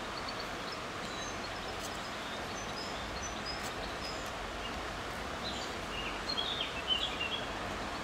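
Outdoor background with a steady hiss of ambient noise and a few short, high bird chirps scattered through it.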